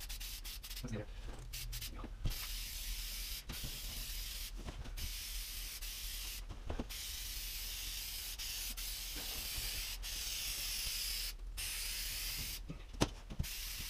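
A large sheet of stiff brown paper rustling and rubbing as it is held and pressed against a drywall arch: a steady scratchy hiss with brief breaks and a few small clicks.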